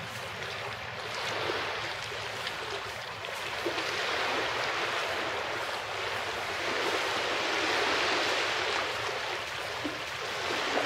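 Small waves washing onto a sandy shore, swelling and falling back in slow surges.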